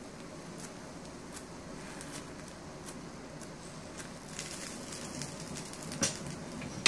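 Faint sizzle of bread toasting in ghee in a nonstick pan on low flame, with a wooden spatula brushing over the top slice. Two light knocks near the end.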